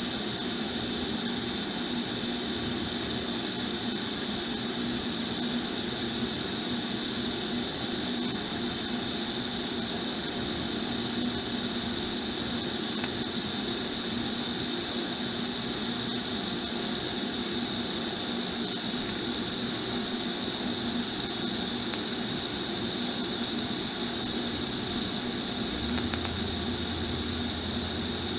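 TIG welding arc on a cracked steel motorcycle frame, a steady hiss with a constant hum underneath. A low hum joins near the end.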